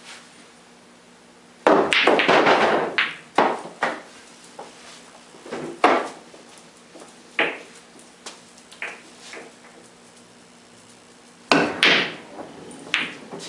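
Pool balls on a Mizerak table: a cue shot about two seconds in sets off a quick run of ball-on-ball clacks and cushion knocks, then scattered single clicks as the balls roll and touch. A second shot near the end brings another burst of clacks.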